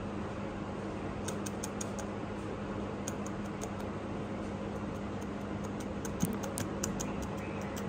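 Light, irregular clicking, several clicks a second starting about a second in, over a steady background hum.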